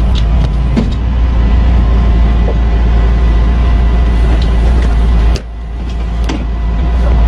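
Wheeled excavator's diesel engine running hard with a steady low rumble and a faint hydraulic whine; about five seconds in the revs drop suddenly, then build back up over the next two seconds. A few light knocks come through.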